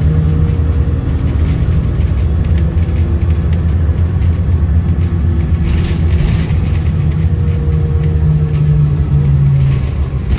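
Car driving along: steady low engine and tyre rumble, with a faint hum that rises a little in pitch near the end.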